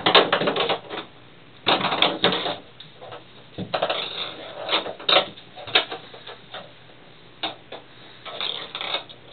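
Ping pong ball clattering, bouncing and rolling around a bathtub as kittens bat at it: irregular runs of quick, light clicks with short pauses between them.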